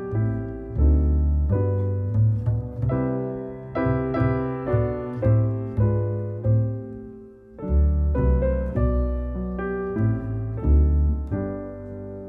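Instrumental background music, with chords changing about every half second over a deep bass line.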